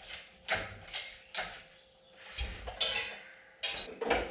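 A few short metallic clinks and knocks, with a longer metal scrape about two and a half seconds in, as an engine is worked out of a car's engine bay.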